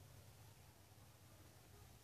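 Near silence: faint room tone with a low steady hum.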